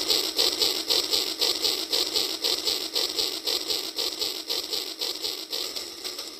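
Battery-powered toy steam train running along plastic track, a rapid, even clicking rattle of about four or five beats a second that grows fainter near the end as the train moves off.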